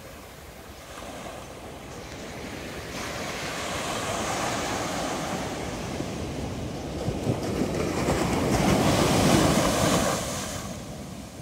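Small waves breaking and washing up a sandy beach. The wash swells over several seconds to its loudest near the end, then dies away.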